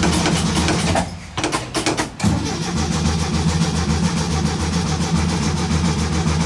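Starter motor cranking the 1967 VW bus's air-cooled flat-four in short bursts, with brief pauses about a second in and around two seconds in, then one longer steady crank. The engine turns over evenly without catching: a no-start after sitting, which the owner puts down to dirty ignition points.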